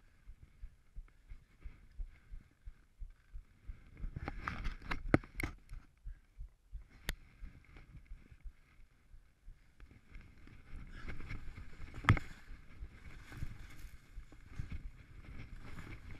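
Skis scraping and sliding on snow through turns, with sharp clicks and knocks, the loudest about twelve seconds in. A quieter lull falls in the middle.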